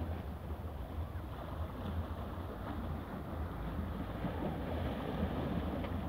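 Small sea waves washing and splashing against shoreline rocks, over a steady low rumble of wind on the microphone.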